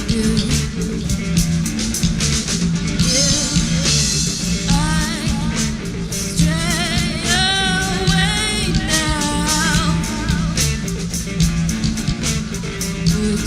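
Rock band playing with a steady drum-kit beat and guitars, a wavering, bending melodic line over it through the middle stretch.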